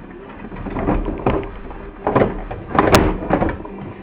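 Plastic side cover of a Canon MP130 printer being worked loose and pulled off the casing: a series of plastic creaks and scrapes, with a sharp snap about three seconds in.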